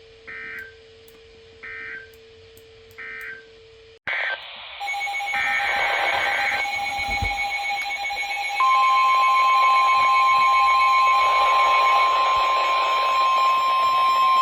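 Three short Emergency Alert System data bursts, the end-of-message code closing a warning. About four seconds in a new alert begins: longer SAME header data bursts overlap with steady beeping tones. Then, about eight and a half seconds in, the loud steady 1050 Hz NOAA Weather Radio warning alarm tone starts and holds.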